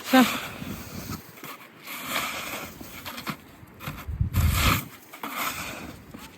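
Footsteps crunching through deep snow, about one step a second, with a brief loud squeak at the very start.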